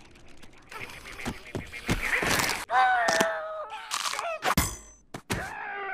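Animated cartoon fight sound effects: a string of thuds, smacks and knocks under hushed, whispered voices, with a strained, held squeal about three seconds in.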